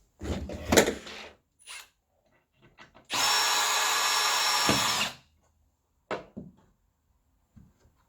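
Electric drill driving a screw into a gate mounting piece. It runs steadily for about two seconds, a little after the middle, and stops sharply. A clatter and a knock come in the first second.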